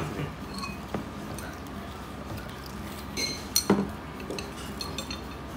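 Chopsticks clicking and scraping against a ceramic plate while cutting into fried tofu, with a few sharp ringing clinks of tableware about three and a half seconds in, over steady low restaurant background noise.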